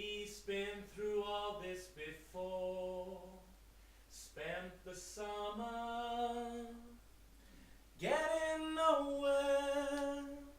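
A single voice singing unaccompanied: short phrases of held notes, with brief pauses between them and a note that slides upward near the end.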